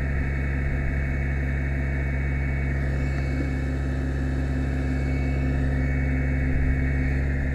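Fire truck's diesel engine running steadily at a fast idle, a continuous low hum, while the aerial ladder is being moved.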